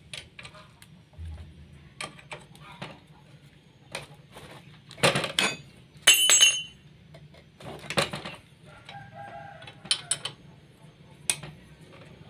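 Metal tools clinking and knocking as a wrench works the rusted front brake caliper bolts of a Honda Supra motorcycle, in irregular clicks and knocks. A short high ringing comes about six seconds in.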